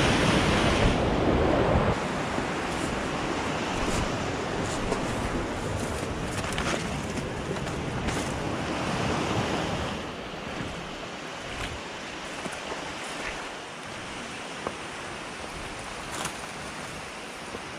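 Rushing floodwater in a normally dry desert wash, a steady noise that drops back about two seconds in and again about ten seconds in, with a few faint clicks scattered through it.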